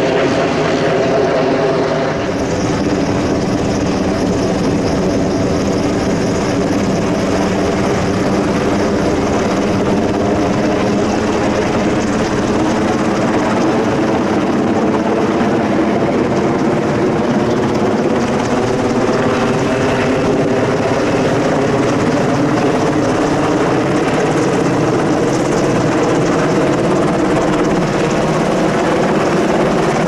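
Sikorsky UH-60A Black Hawk helicopter in flight, its main rotor and twin turboshaft engines running loud and steady.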